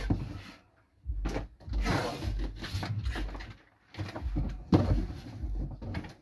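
Packing tape ripped off its roll in two long pulls and pressed down onto a cardboard box, with a sharp knock against the box partway through.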